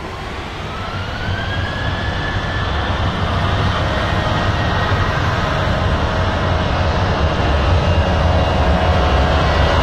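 EgyptAir twinjet airliner's jet engines spooling up to takeoff thrust at the start of its takeoff roll. The engine whine rises in pitch over the first two or three seconds, then holds steady, while the deep engine noise grows steadily louder as the aircraft accelerates.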